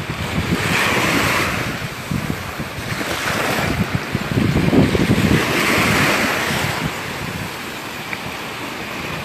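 Gulf of Mexico surf breaking and washing up the beach, swelling about a second in and again around five to six seconds, with wind rumbling on the microphone.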